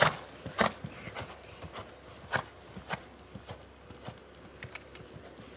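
A pony's hooves going over ground poles: a series of irregular knocks and thuds, the sharpest about two and a half seconds in.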